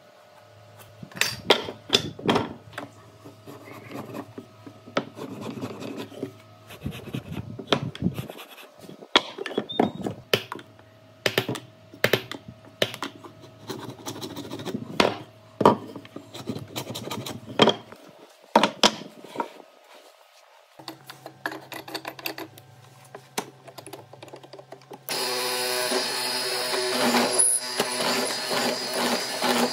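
Wood being handled and worked by hand, with irregular knocks, taps and scraping. About 25 seconds in, an electric power tool starts suddenly and runs steadily.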